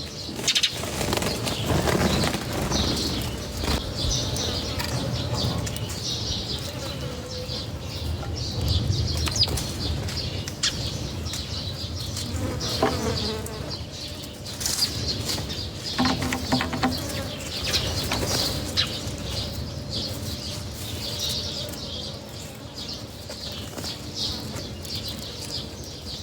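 Birds flapping and fluttering their wings while many high chirps go on continuously, with scattered sharp clicks.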